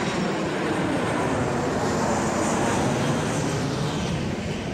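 Jet airliner passing low overhead: a loud, steady rushing engine noise that builds to its loudest about two to three seconds in, then begins to fade.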